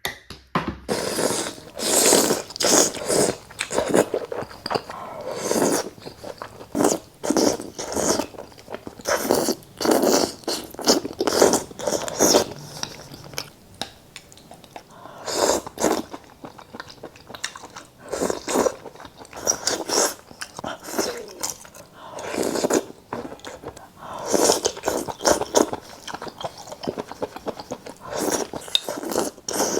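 Close-miked eating: repeated bites and chewing with crunching, coming in bursts with short pauses between them.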